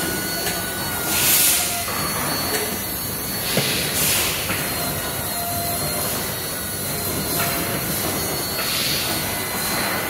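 Steady hum and whine of battery-assembly factory machinery, with three short hissing bursts about a second in, around four seconds in and near nine seconds.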